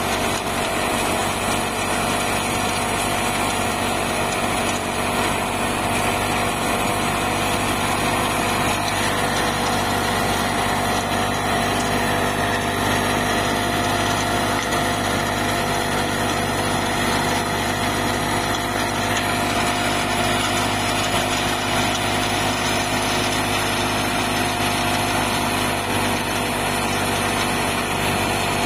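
Fiat 480 tractor's diesel engine running steadily while driving a thresher, the drum and blower fan adding a continuous whirring drone as crop is threshed.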